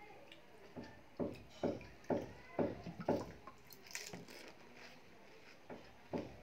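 Close-up mouth sounds of eating pani puri: wet chewing about twice a second, then a crisp crunch about four seconds in as a water-filled puri is bitten, with a couple more chews near the end.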